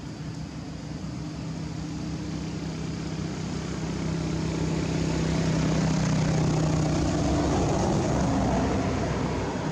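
A motor's steady drone, growing louder through the middle and easing off near the end, as an engine passes.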